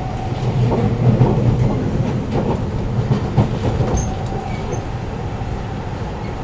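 Siemens C651 metro train heard from inside the carriage while running along the track: a steady low rumble with light wheel clicks over the rails. It swells louder about a second in and eases off after about four seconds.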